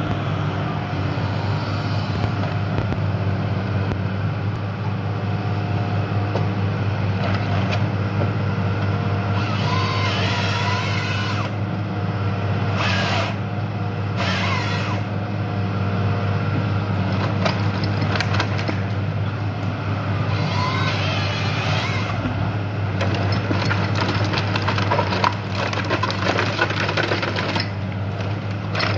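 Fiat Hitachi EX215W wheeled excavator's 107 kW diesel engine running steadily under hydraulic load while its Konrad Woody 60 processor head grips and feeds a tree. Bursts of cracking and splintering wood come through the engine noise as the head strips branches off the trunk, busiest in the middle and again near the end.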